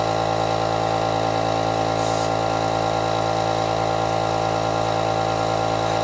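Air compressor running steadily at an even pitch, with a short hiss about two seconds in.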